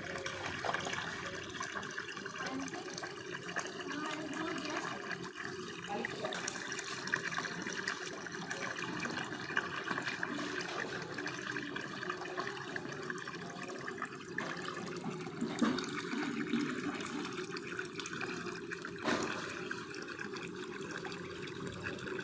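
Water running steadily from a mini tube well's outlet, a continuous even flow.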